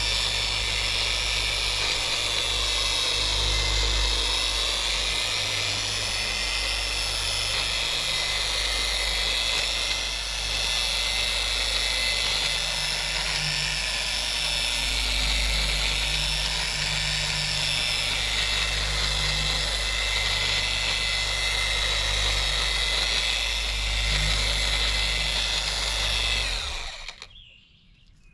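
Harbor Freight dual-action polisher running steadily, buffing the fiberglass side of an RV with a foam pad. It switches off near the end.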